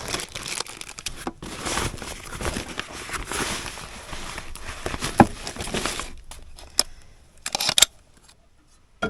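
Plastic packaging crinkling and tearing as it is handled, for about six seconds, followed by a few sharp clicks and knocks.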